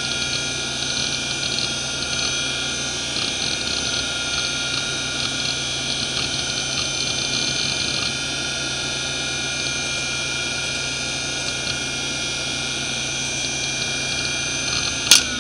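Fuji Electric FK319A-240R 240MB hard drive spinning with a steady whine and rough-running spindle bearings, which are badly worn. Its heads seek in bursts of rapid ticking, busiest in the first half. Near the end there is a single sharp click, after which the drive starts to wind down.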